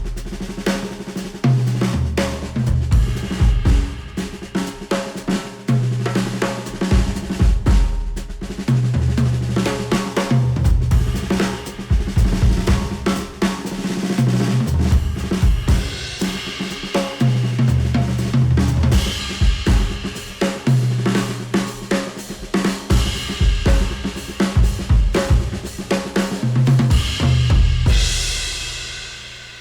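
Instrumental track with a full drum kit and a repeating bass line, played back through Sennheiser headphones and recorded by microphones; the music fades out near the end.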